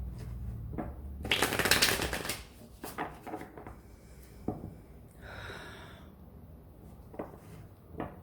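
Tarot deck being shuffled by hand: a dense rush of cards sliding about a second in, then scattered light taps and flicks of cards.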